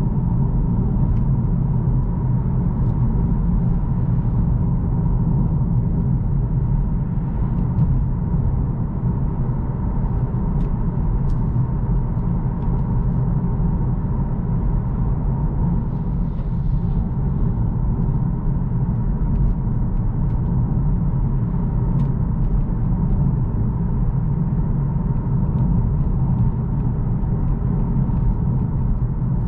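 Steady low rumble of road, tyre and drivetrain noise inside the cabin of a Mercedes-Benz CLA 250e plug-in hybrid cruising at about 50 mph.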